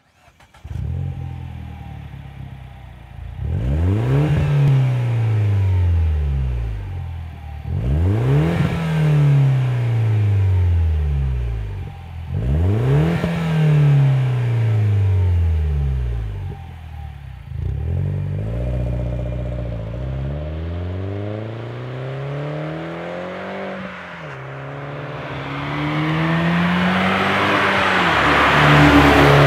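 MINI Cooper Clubman S (R55) turbocharged 1.6 L four-cylinder through a Hooker Blackheart stainless cat-back exhaust with straight-through mufflers. The engine starts and idles, is revved three times with the pitch falling back slowly after each, then is held at a steady higher speed. Near the end the car drives up with rising road and wind noise.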